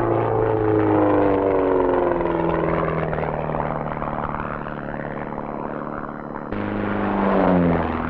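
Aerobatic biplane's piston engine and propeller passing low, its pitch falling as it goes by and then holding steady. About six and a half seconds in the sound cuts suddenly to another pass, again dropping in pitch.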